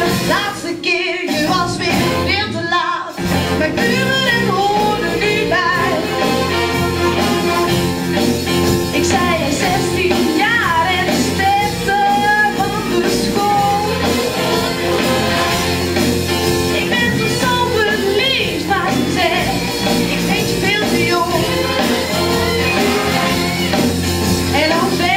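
A young woman singing a song into a handheld microphone, amplified, over instrumental band accompaniment. The accompaniment drops out briefly twice near the start.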